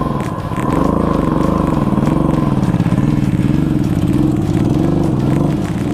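Royal Enfield Himalayan's single-cylinder engine labouring on a rough, rocky uphill track, its revs rising and falling over and over.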